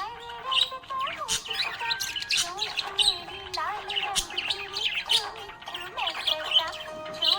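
Budgerigars chirping and warbling continuously, a busy run of quick chirps, squeaks and wavering notes.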